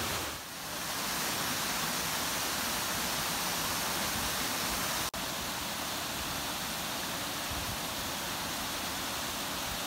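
Steady rush of Scaleber Force, a stepped waterfall, cascading over rock ledges into a pool. The sound drops out for an instant about halfway through and comes back slightly quieter.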